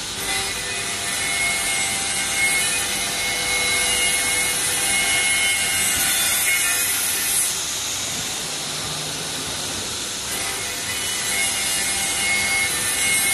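CNC saw-blade wood cutting machine sawing a wooden board: a steady mix of noise and a high spindle whine. It eases off for a couple of seconds about two-thirds through, then cuts again.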